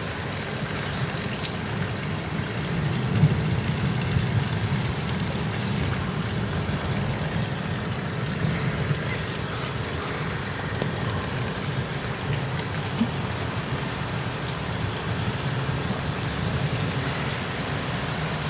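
Thunderstorm rain falling steadily, with a low rumble underneath.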